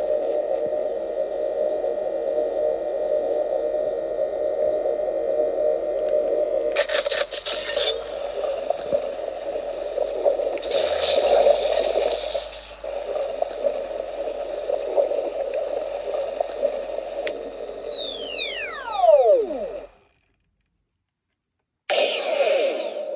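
Hasbro Ghostbusters Neutrino Wand toy playing its electronic sound effects through its small speaker: a steady buzzing hum with brief bursts of higher crackle. About nineteen seconds in, a falling whine powers it down into silence, then it starts again near the end.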